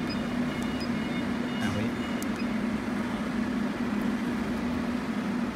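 Steady low machine hum, with a few faint clicks in the first couple of seconds as keys on the CNC controller's keypad are pressed.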